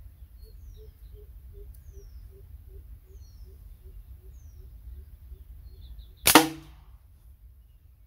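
A slingshot shot: the rubber bands released from full draw with one sharp, loud snap about six seconds in, ringing briefly after.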